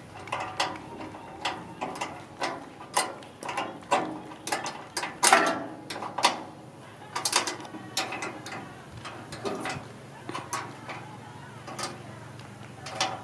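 Spanner tightening the bolts that close the sheet-metal blower fan case of a maize sheller: a run of irregular metallic clicks and ticks, about one or two a second.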